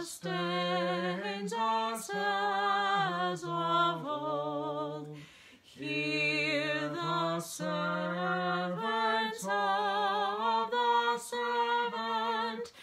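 A man singing a hymn solo with no accompaniment, holding each note with a slight waver. There is a short pause for breath about five seconds in, between lines.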